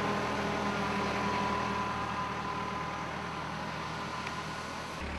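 Tractor engine running steadily while the tractor skids logs held up by the chains of a hydraulic winching skidder.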